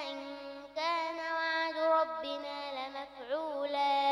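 A young girl reciting the Quran in a melodic, chanted style, holding long notes with wavering turns of pitch.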